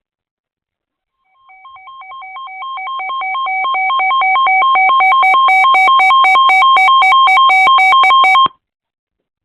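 Weather radio receiver's electronic alert alarm: two beeping tones alternating rapidly, growing louder over the first few seconds and then cutting off suddenly near the end. It is the radio signalling that a new warning has come in.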